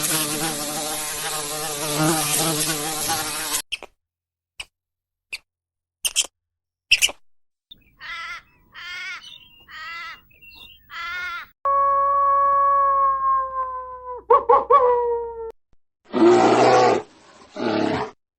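A series of different animal sounds in turn: a loud buzzing drone for the first few seconds, then a few sharp clicks, four short wavering calls, one long steady call that drops slightly in pitch, and two rough bursts near the end.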